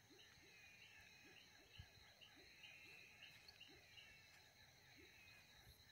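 Faint night chorus of frogs and toads calling from a pond, short low notes repeating about twice a second over higher chirps, with a steady high buzz of insects. A single soft thump about two seconds in.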